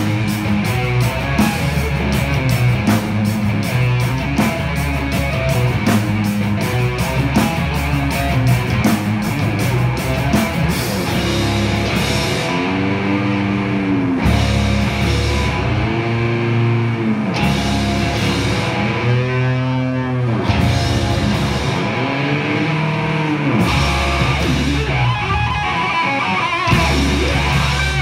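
Heavy metal band playing live, with distorted electric guitars, bass guitar and drum kit. For about the first eleven seconds the drums hit fast and dense, then the music slows into a section of long notes bent up and down in pitch.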